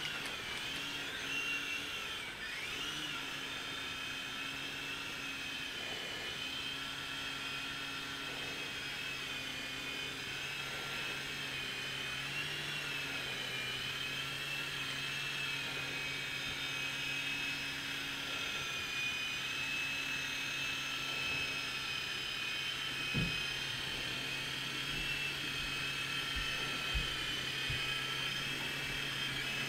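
Small electric RC model helicopter flying, its motors giving a high-pitched whine over a steady lower hum. The pitch wavers during the first few seconds and then holds steady. A couple of brief low knocks come in the second half.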